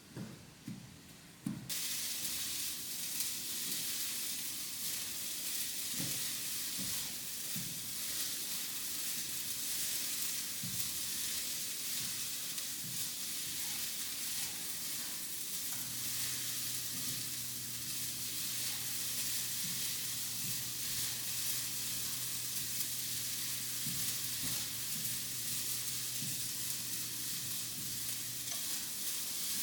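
Turkey frying in a pan, sizzling steadily. The sizzle starts suddenly about two seconds in, with a few light knocks along the way. A low steady hum joins it from about the middle until near the end.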